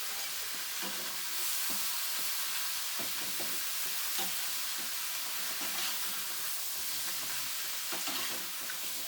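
A steady sizzling hiss, with scattered light clicks and knocks.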